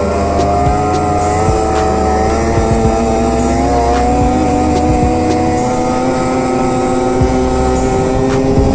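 Arctic Cat ZR 6000RR snowmobile's 600 two-stroke twin running hard under way. Its pitch climbs right at the start, then holds nearly steady, creeping slowly higher.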